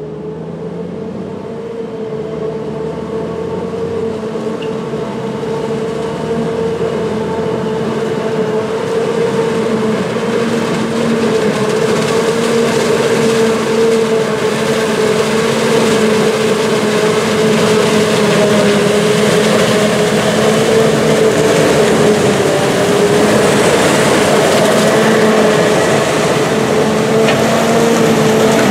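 Claas Jaguar 960 self-propelled forage harvester chopping corn, with its Mercedes-Benz six-cylinder engine running under load alongside a tractor pulling a silage trailer: engine noise with a steady high whine over it. The sound grows louder over the first half as the machines come closer, then holds steady.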